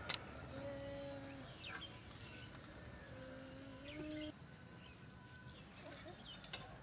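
Two drawn-out, steady farm-animal calls of about a second each in the background, with short high bird chirps between them. A sharp utensil clink right at the start is the loudest sound, and light metallic clicks come near the end.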